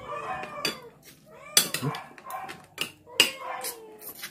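A cat meowing repeatedly, about three drawn-out meows that rise and fall. Between and over them come sharp clicks, the loudest about one and a half seconds in and again about three seconds in.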